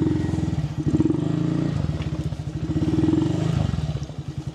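Honda Monkey 125's single-cylinder four-stroke engine idling, freshly started after three months in storage. Its revs rise briefly twice, about a second in and again around three seconds in.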